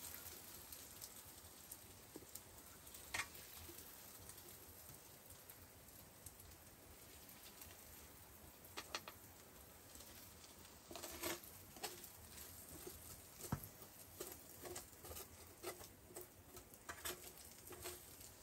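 Faint, scattered scrapes and taps of a spatula against a frying pan as cooked food is scraped out onto a plate, with small clusters of clicks about halfway through and again near the end.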